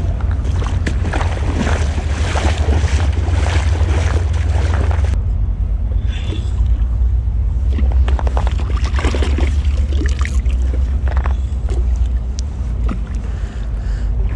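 Wind buffeting the microphone in a heavy, steady rumble, over shallow creek water running and splashing around a wading angler.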